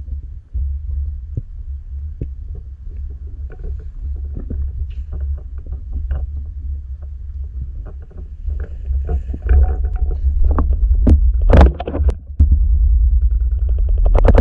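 Underwater recording: a steady low rumble of water moving against the camera housing, with scattered clicks and knocks that grow louder and more frequent in the last few seconds.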